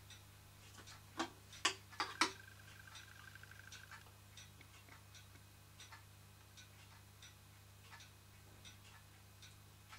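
Light clicks and taps, four sharper ones close together around one to two seconds in, then soft ticking about every 0.7 seconds, over a steady low hum.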